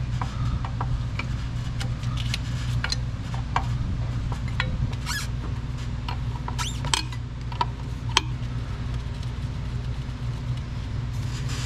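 Scattered metallic clicks and clinks, with a few short squeaks around the middle, as a wrench works loose the fuel-line fittings on a 7.3 Powerstroke diesel's fuel bowl. A steady low hum sits underneath.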